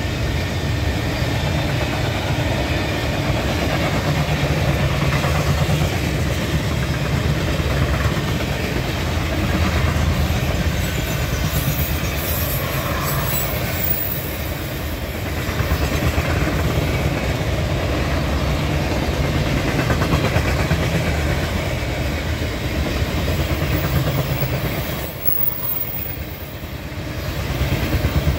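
Freight train of open-top hopper and gondola cars rolling past, a steady rumble of steel wheels on rail with some clickety-clack over the rail joints.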